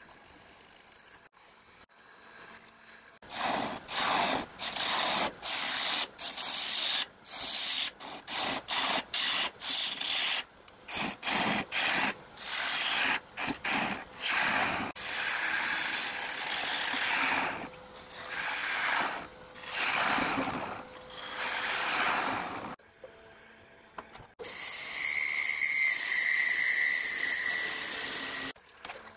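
Wood being worked on a spinning wood lathe: a scraping hiss of tool or abrasive on the turning blank, in many short stretches of uneven length. A longer steady stretch comes near the end.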